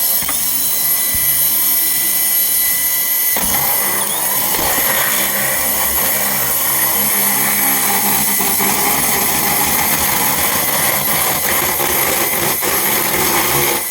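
Electric drill running continuously as it bores into an Xbox One console's casing. It starts as a steady whine and becomes rougher and noisier about three seconds in, when the bit bites.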